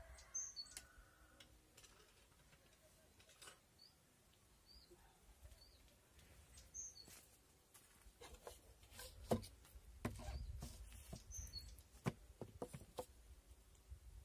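Faint knocks and clicks of a lidded metal cooking pot being set down on a wooden board and its clamp handle handled, the loudest knock about nine seconds in. A bird chirps a short two-note call three times.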